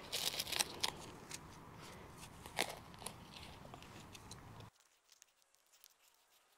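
Small hand tool digging and scraping into soil, with crunching scrapes and small clicks at an uneven pace. The sound cuts off abruptly about two-thirds of the way through, leaving near silence.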